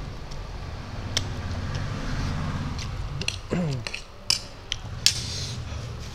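Close-up eating sounds of spicy instant noodles: chewing and slurping, with several sharp clicks of a fork and spoon on a plate. A brief falling vocal hum comes about three and a half seconds in.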